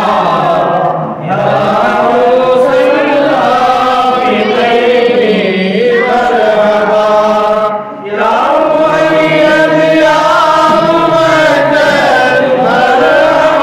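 A group of men chanting mawlid verses together, a devotional recitation in praise of the Prophet. The melody bends and holds in long lines, with short breaks for breath about a second in and again about eight seconds in.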